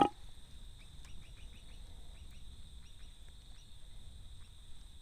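A deep croak cuts off right at the start, then quiet bush ambience: a steady high-pitched insect trill with a quick run of short bird chirps between about one and two and a half seconds in.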